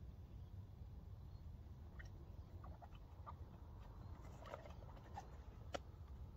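Quiet outdoor field ambience: a low steady rumble with a few faint, scattered chirps and a single sharp click near the end. No shot is fired.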